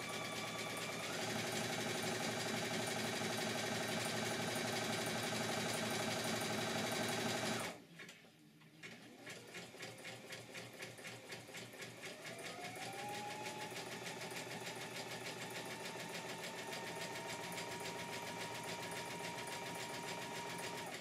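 Brother Innovis XV sewing machine stitching a zigzag, its motor hum with the needle's rapid chatter. The hum steps up in pitch about a second in as the speed is raised, and stops briefly a little before the middle. It then starts again and rises in pitch to a steady faster run.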